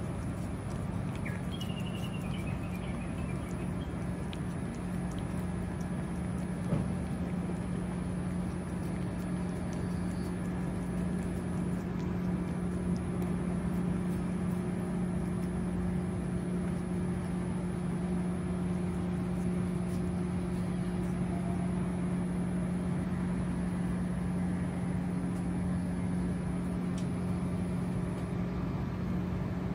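A steady low hum like a running engine or machine, with a thin, steady high-pitched whine over it and a few faint clicks.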